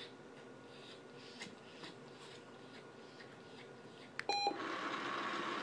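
Manners Minder remote treat dispenser giving a short electronic beep about four seconds in, the tone that marks a treat being dispensed, followed by a louder steady whirr with a held tone as it runs.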